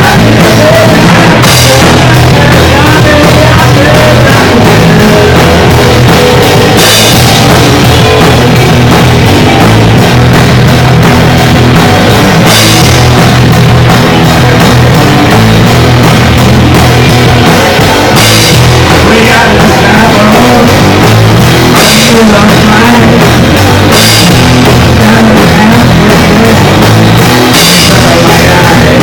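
A garage rock band playing loud, dense rock music, with a steady drum-kit beat and cymbal crashes that ring out every few seconds.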